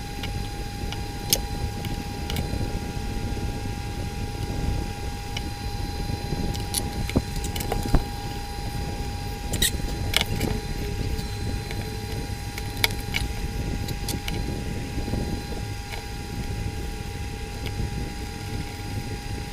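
Hot-air rework station blowing steadily, with a constant thin tone, while scattered sharp clicks of metal tools tap on the phone's circuit board as parts are lifted off.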